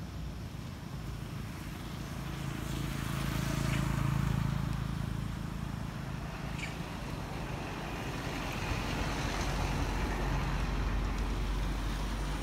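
Low engine rumble of passing traffic that swells to its loudest about four seconds in, fades a little, then builds again more gently later on.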